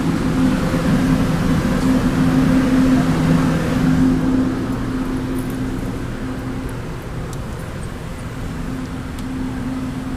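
Farm machinery running steadily: a low mechanical drone with a steady hum, louder for the first few seconds and then settling lower.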